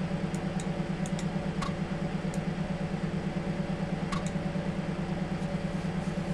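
Steady low machine hum with a fast, even pulse, and a scatter of sharp clicks from a computer mouse as it works the menus.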